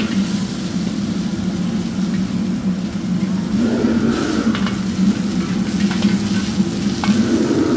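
Diced beef sizzling and hissing in a hot wok, over the steady low drone of a gas wok burner. A metal ladle stirs it, with a few sharp clicks against the wok in the second half.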